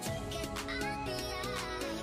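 Background music with held notes and a melody that bends in pitch.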